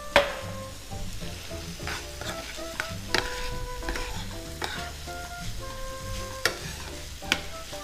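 Bacon sizzling in a frying pan as it is stirred with a spoon, the spoon clicking sharply against the pan a few times.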